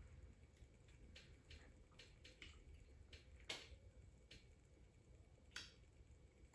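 Near silence: room tone with a few faint scattered clicks, the clearest about three and a half seconds in.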